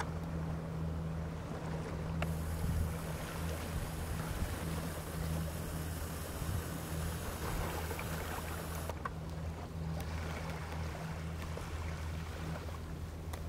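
Suzuki 200 hp outboard motor running steadily as a low hum under a hiss of wind and water.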